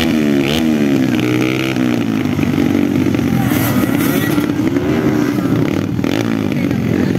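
Motocross dirt bike engines revving up and down in pitch, more than one running at once.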